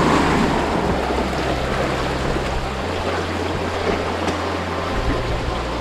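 Small waves washing and splashing over shoreline rocks: a steady rushing wash that eases slightly after the start.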